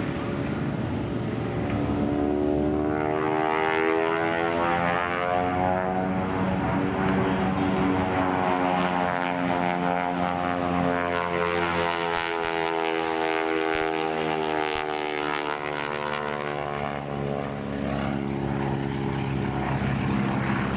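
Radial engine and propeller of an aerobatic biplane droning overhead, its pitch sliding down and back up as the plane manoeuvres and changes power and distance.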